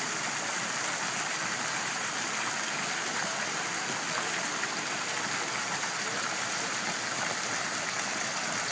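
Tiered fountain running, its thin jets and streams of water splashing steadily into the basin below.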